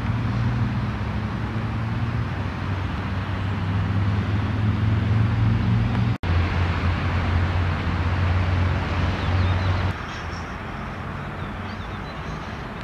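Outdoor traffic ambience: a steady wash of road noise with a low, even engine hum. The hum stops about ten seconds in, leaving quieter background noise. There is a brief dropout about six seconds in.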